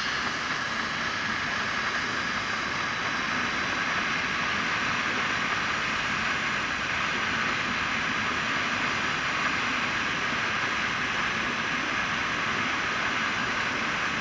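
Butane gas hissing steadily as it is pushed from a canister through the filler valve into the gas tank of a Roundhouse Fowler live steam locomotive.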